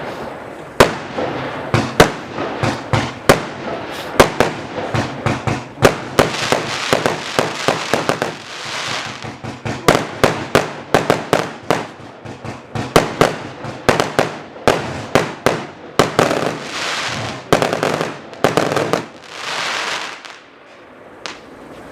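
200-shot firework cake firing a rapid string of sharp bangs, several a second, mixed with stretches of hiss, then dying away about twenty seconds in as the cake finishes.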